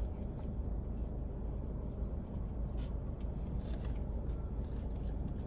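Steady low rumble of a car cabin, with a few faint clicks of someone chewing food.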